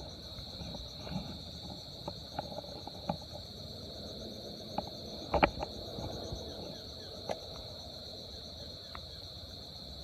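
A steady, high-pitched drone of insects calling, over a low outdoor rumble. Scattered faint clicks and taps run through it, with a louder pair of taps about five and a half seconds in.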